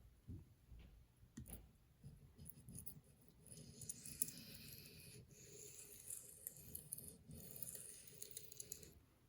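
A few light knocks, then a steel knife blade scraping in long strokes across a wet sharpening stone, three passes with short breaks between them.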